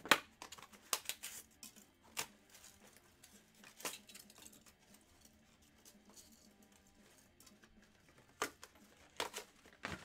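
Scattered sharp clicks and light knocks, a cluster in the first second and a few more near the end, over faint background music.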